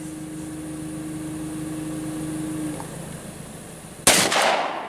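A single shot from a Glock Model 40 10mm pistol about four seconds in, sharp and loud, ringing out for about half a second. Before it a steady low hum runs and stops about a second before the shot.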